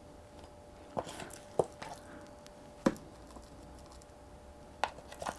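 Spoonfuls of wet, sludgy modelling compound being scooped from a plastic tub and slapped onto a board: a handful of soft squishes and short taps, about five in all.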